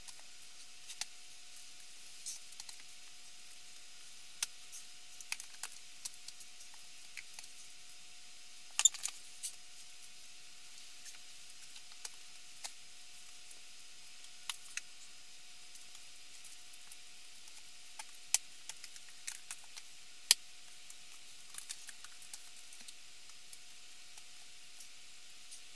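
Books being handled and stacked: scattered light taps and clicks of covers and spines, the sharpest about nine seconds in and twice more around eighteen and twenty seconds, over a steady hiss and a faint constant tone.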